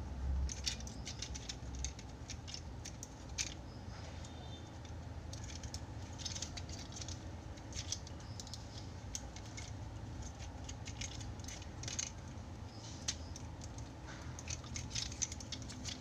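Small plastic clicks and rattles of a mini Tobot X transforming toy car being handled, its arm and roof parts unclipped and moved by hand, over a steady low hum.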